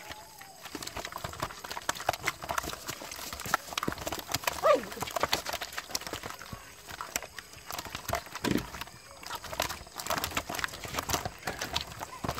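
Live catfish thrashing in a plastic basin with a little water, their bodies and tails slapping and knocking against the plastic with small splashes, in quick irregular knocks. The thrashing is their reaction to being covered in salt to kill them and strip their slime.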